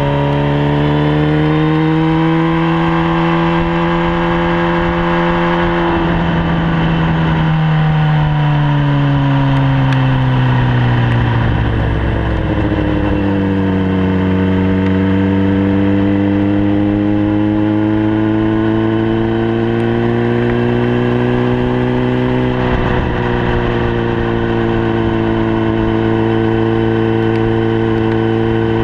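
Sport motorcycle's engine and exhaust at speed on a race track, picked up close from the tail section. The pitch holds high, falls over several seconds from about six seconds in as the bike slows, then climbs slowly again under throttle, dipping briefly once more near the end.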